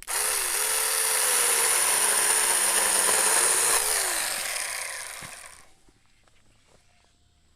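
ASJMREYE 24-volt cordless mini chainsaw with a 4-inch bar starting up sharply and cutting a tree limb, its electric motor whine dipping in pitch under load, then winding down and stopping about five and a half seconds in.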